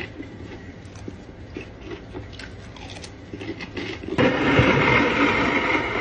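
Faint small clicks, then about four seconds in a steady rush of running water starts suddenly.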